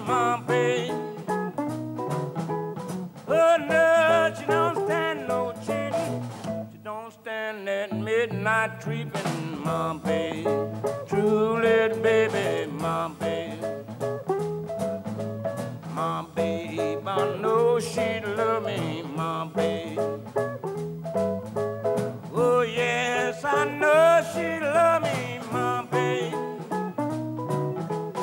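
Chicago blues band playing an instrumental passage: a blues harmonica, cupped in the hands and played into a microphone, carries the lead with wavering, bent notes over electric guitar, bass guitar and drums.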